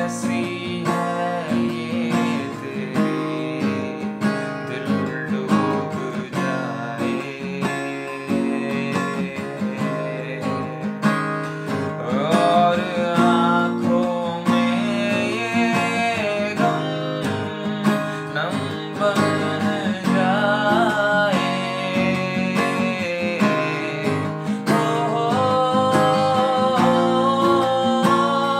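A man singing while he plays an acoustic guitar.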